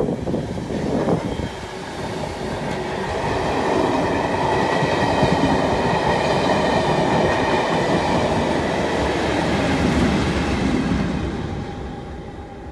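Test train passing at speed: the steady rolling rumble of coach wheels on the rails builds, holds, and then fades from about eleven seconds in as the train, with a Colas Rail class 37 diesel locomotive on the rear, runs away into the distance. A faint high ringing rides over the rumble.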